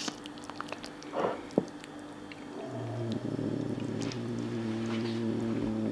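Soft squishing and light clicks of a spatula lifting a slice of baked lasagne from a glass baking dish. About halfway through, a steady low hum starts and holds.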